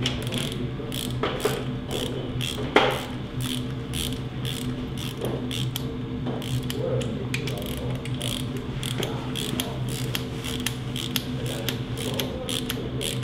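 A steady low mechanical hum with a string of sharp clicks, roughly two or three a second, and one louder click about three seconds in.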